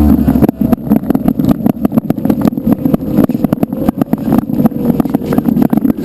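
FPV model plane's motor and propeller running at high throttle, under heavy, choppy wind buffeting on the microphone.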